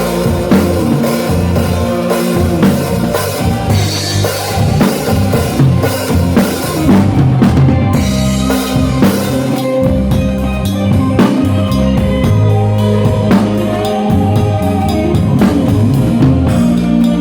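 A band playing loud music: a drum kit keeps a steady beat of kick and snare under a sustained bass line and pitched instrument parts.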